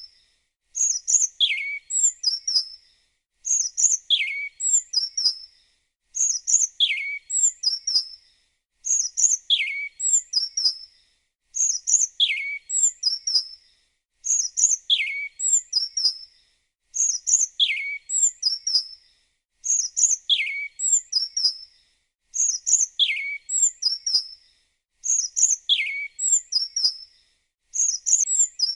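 Small songbird chirping. The same phrase repeats about every three seconds with a brief gap between: a run of quick, high chirps with one downward-sweeping note in the middle.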